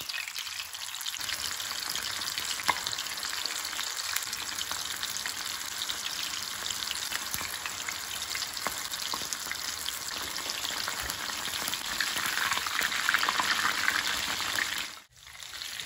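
Batter-coated mushroom pieces deep-frying in hot oil in an iron kadai: a steady sizzle with scattered crackles. It grows louder near the end while the pieces are stirred with a wire spider strainer, then cuts off suddenly about a second before the end.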